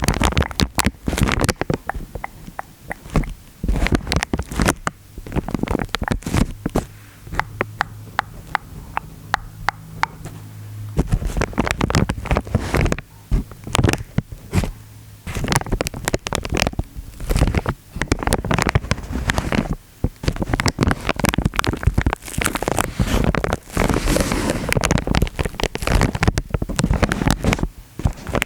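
Water gurgling and sloshing close to the microphone, with a dense run of small irregular clicks and crackles. A low steady hum sounds from about seven to eleven seconds in.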